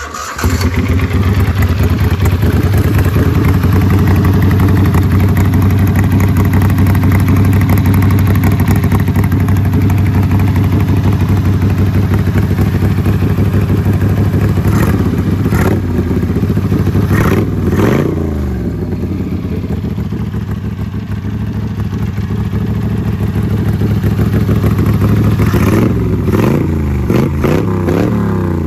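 Mud Buddy Sport V 44 mud motor's engine starting and running loud through an unbaffled VooDoo Performance exhaust. It is revved up and back down about halfway through, again shortly after, and once more near the end.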